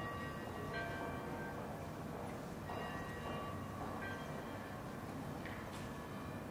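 Church bells ringing, struck at uneven intervals, about four strikes with each tone ringing on and overlapping the next, over a steady background hum of street ambience.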